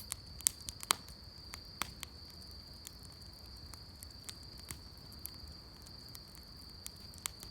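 Wood fire crackling, with sharp pops, several of them in the first two seconds. Under it runs a steady high-pitched trill of crickets.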